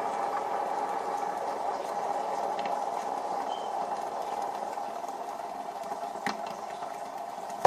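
Fidget spinner spinning on its bearing, a steady whirr that slowly fades, with a small click a little after six seconds and a sharp tap at the very end.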